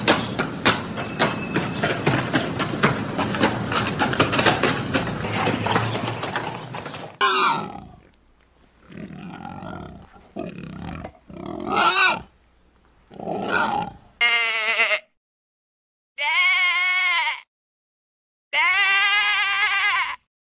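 About seven seconds of dense crackling and clicking. Then pigs grunt in several uneven calls, and then a sheep bleats three times, each bleat wavering, the last two about a second and a half long.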